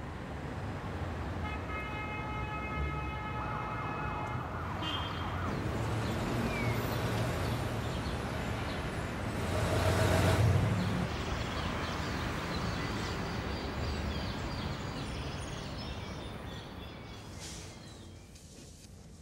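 City street traffic: a steady rumble of vehicles, with a siren sounding and one vehicle passing loudly about ten seconds in. The sound fades away near the end.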